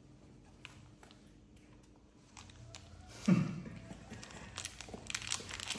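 Quiet room with faint taps, then a short low voice-like grunt falling in pitch a little past halfway, followed by a run of light taps and clicks from young monkeys' hands and feet on a tiled floor.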